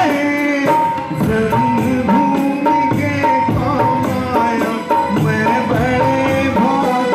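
A man singing a Hindi patriotic song through a microphone and PA, accompanied by tabla and other percussion keeping a steady rhythm.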